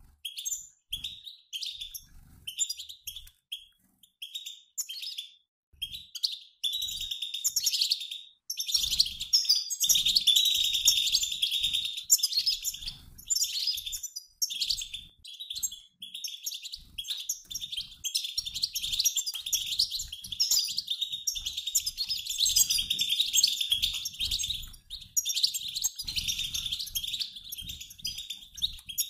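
European goldfinches of a mixed flock, males and females, twittering together in a dense run of high chirps and trills, like a flock in flight. It comes in short bursts with gaps for the first several seconds, then runs almost without pause. This is the chatter goldfinch keepers play to stir a male goldfinch to sing.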